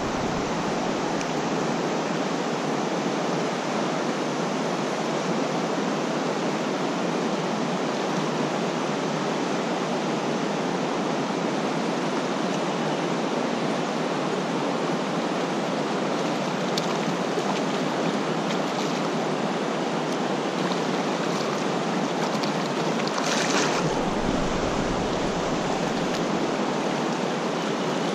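Fast creek current rushing over a rocky riffle close to the microphone, a steady even roar of moving water. About 23 seconds in there is a brief low rumble.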